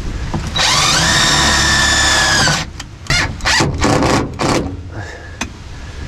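Cordless Ridgid drill driver running in one steady pull of about two seconds, its whine dipping as it stops, then several short trigger bursts, driving a screw to fasten a cable clip to a car's underbody.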